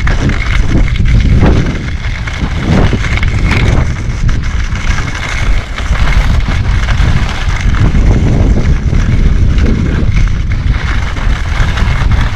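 Wind rushing over the camera microphone as the skier moves downhill, a loud steady rumble with a hiss over it.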